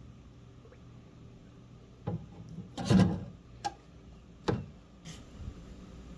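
Small carburetor parts being handled on a workbench: a few separate knocks and clicks, with a short, louder clatter about three seconds in.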